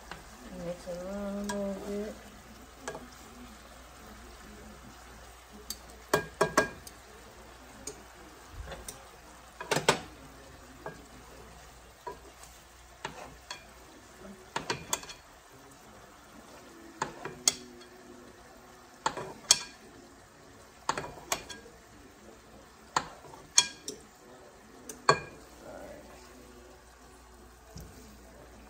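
Metal utensil clicking and scraping against a nonstick sauté pan as chicken thighs and onions are turned, with sharp clicks every second or two over a faint sizzle of frying.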